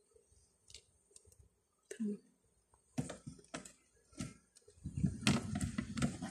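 Light knocks and clicks of wooden hive frames being handled over a plastic tub, then about five seconds in a dense low rumble sets in.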